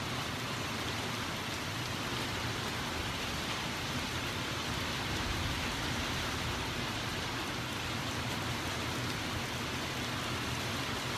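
Steady, even hiss of a thunderstorm's wind and falling precipitation, with no distinct thunderclaps.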